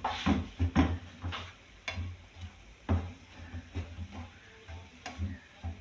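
Wooden spatula stirring minced meat in a frying pan, with irregular clacks and scrapes against the pan.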